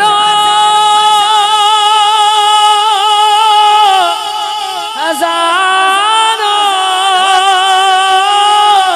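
Male singer drawing out a long Urdu devotional phrase into a microphone, holding notes with a wavering pitch. A second held phrase begins about five seconds in.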